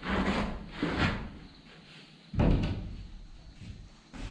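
A few dull thumps and knocks as a large sheet panel is handled and pushed into place overhead. The sharpest thump comes a little past halfway.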